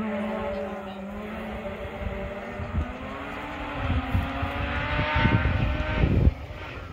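Mazda RX7 rally car's rotary engine at high revs, approaching and growing louder, with a low rumble building under it. The sound drops off sharply about six seconds in.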